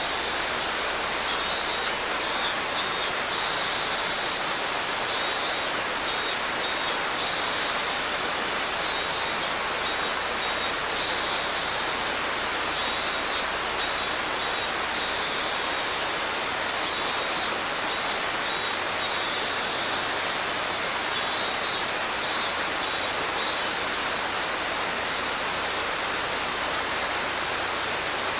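Mountain stream rushing steadily over rocks, with a robust cicada (minmin-zemi) singing over it in a high, pulsing phrase that repeats about every four seconds.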